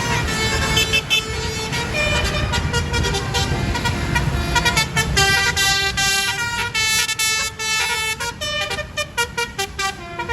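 Bus telolet horn, a multi-trumpet air horn, playing a melodic tune of toots in changing pitches over the bus's engine rumble. The notes become short and choppy in the second half.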